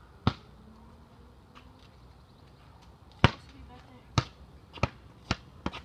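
A basketball bouncing: one bounce about a quarter second in, then, after a pause, a run of bounces coming quicker and softer as the ball settles.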